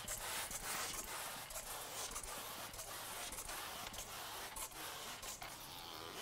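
Trigger spray bottle squirting water onto window film on glass, a quick irregular series of short hissing sprays, wetting the film down before it is squeegeed.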